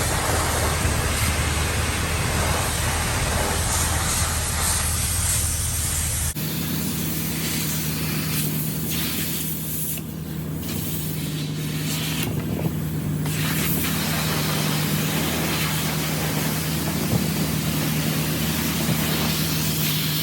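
A steady hissing noise with a low rumble, then after an abrupt change about six seconds in, a pickup truck running with a steady low engine hum under hissing road and wind noise.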